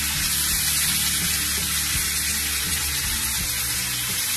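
Onion and garlic frying in sunflower oil in a non-stick wok, giving a steady sizzling hiss, with background music.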